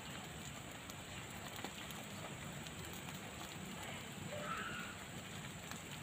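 Whole fish grilling on banana leaves on a wire rack over charcoal: a faint, steady sizzle with a few small crackles.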